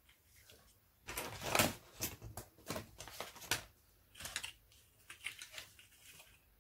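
Stiff black cardstock sliding and rustling on the table as it is turned, with a fold line being creased along its edge: a run of short scraping and rustling strokes, loudest a little under two seconds in.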